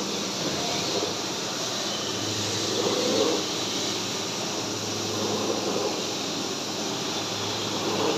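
Haas Super VF-3YT CNC vertical machining centre running a program: a steady low hum under a broad, even hiss, with a few soft swells.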